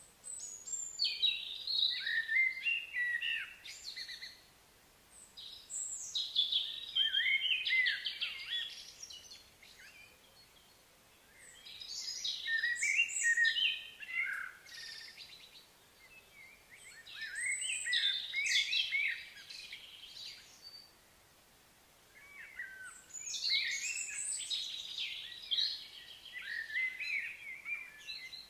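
A songbird singing in long, varied phrases of rapid high notes: five bouts of a few seconds each, with short pauses between.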